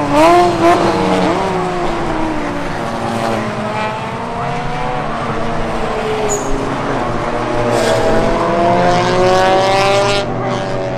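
A pack of GT200-class touring race cars at full racing pace, several engine notes overlapping and revving up and down. The notes drop near the start, then climb steadily over the last few seconds.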